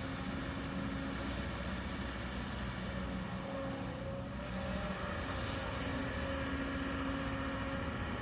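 Kobelco excavator's diesel engine running steadily under work, its pitch wavering slightly.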